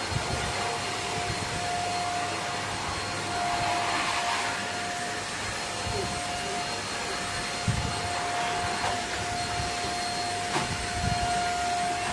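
Handheld vacuum cleaner running steadily, a constant whine over its airflow noise, swelling briefly about four seconds in, with a few low bumps.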